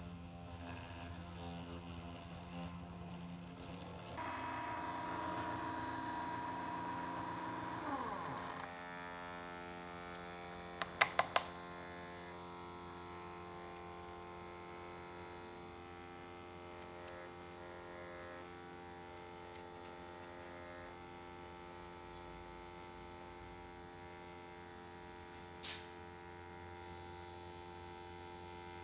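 Homemade Arduino-driven CNC engraving machine running, a steady electric hum and whine from its motors. A higher tone comes in about four seconds in and falls away in pitch around eight seconds, and there is a quick group of sharp clicks around eleven seconds and another click near the end.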